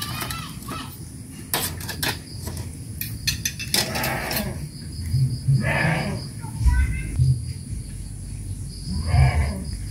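Clicks and knocks of a pot lid and plates being handled, with a steady high insect drone and a few short calls from a farm animal. Low thuds of handling and footsteps come in the second half.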